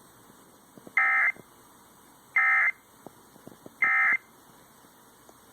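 Emergency Alert System end-of-message data bursts: three short, identical warbling digital bursts about a second and a half apart. They carry the 'NNNN' end-of-message code that closes an EAS alert.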